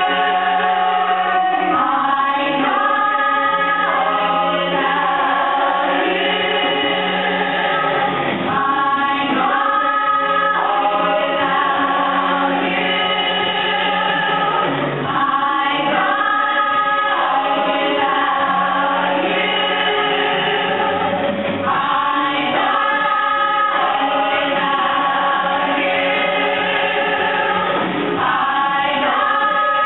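Music: a song sung by a choir-like group of voices with accompaniment, held notes changing every second or two.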